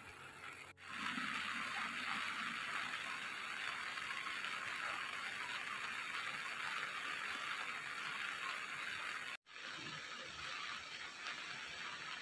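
Steady hiss of rain falling, with no other sound standing out. It breaks off briefly twice, about a second in and about three quarters of the way through.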